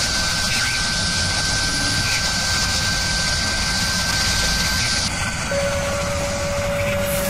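Steady rushing, engine-like drone over a low rumble with a thin high whistle: a sound effect over an animated CNC milling intro. The hiss eases about five seconds in and a lower steady tone takes over.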